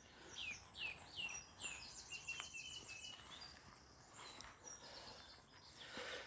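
A small songbird singing faintly: about five quick down-slurred whistled notes, then a rapid high trill that stops about three seconds in, over a faint steady background hiss.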